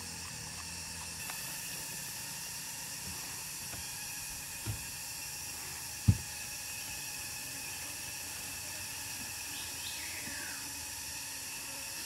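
Steady high-pitched drone of insects in the forest. There is a sharp dull thump about six seconds in and a softer one shortly before it.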